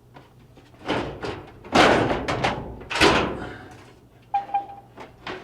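Sheet-metal dryer parts being handled and set down: a few thunks and knocks, the loudest about two and three seconds in.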